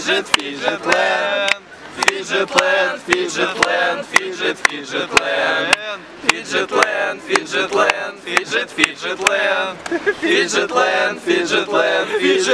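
A group of young people singing or chanting together, their voices overlapping, with many short sharp clicks throughout.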